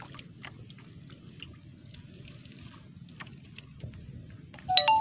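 Steady low rumble of sea water and wind around a small outrigger boat, with scattered light clicks. Near the end comes a short, loud high-pitched call that steps between a few pitches.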